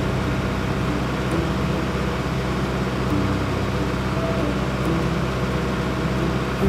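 Steady machine noise: a constant low hum under an even hiss, with no rhythm or change.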